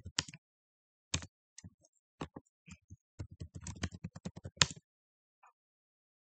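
Computer keyboard being typed on in quick, irregular keystrokes, with one louder stroke at the end of the typing.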